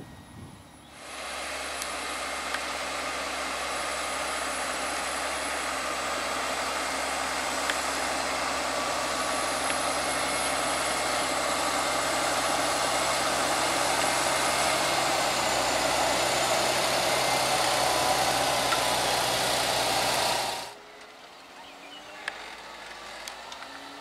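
Fendt 936 Vario tractor's six-cylinder diesel engine running steadily under ploughing load, slowly growing louder, then cut off suddenly near the end, leaving a fainter, more distant engine.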